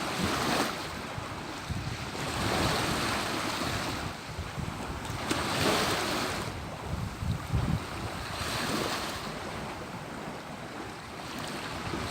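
Wind buffeting the microphone: a rushing noise that swells and fades in gusts every few seconds.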